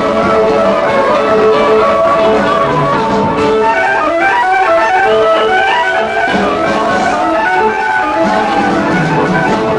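Fast dance music with a lead line of quick melodic runs on a plucked-string instrument, guitar-like, over a steady accompaniment.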